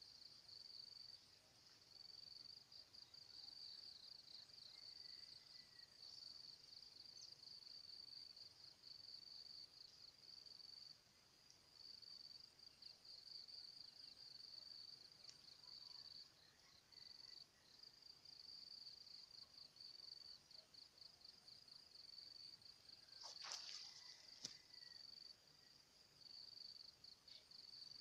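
Faint insects chirring: a continuous high, pulsing trill that breaks off briefly now and then. Near the end, two or three short sharp sounds stand out over it.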